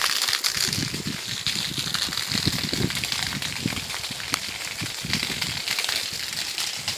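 Steady rush of water, the bamboo bath spout running, with irregular soft thuds of footsteps on dry dirt.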